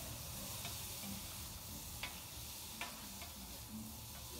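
Diced meat in red sauce sizzling on a hot flat-top griddle, stirred with metal spatulas that scrape and click against the steel a few times.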